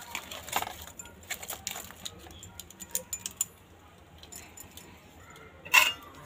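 Metal clinks of a steel plate against an aluminium cooking pot: scattered light ticks and clicks, then one loud clink near the end.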